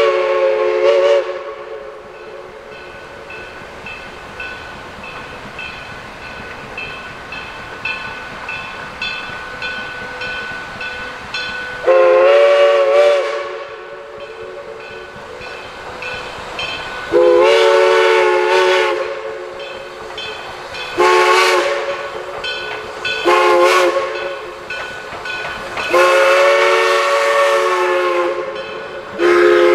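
Steam locomotive #1702's chime whistle blowing a chord in a series of blasts, mostly long with two short ones. Between the blasts the engine runs on with a quick, even beat.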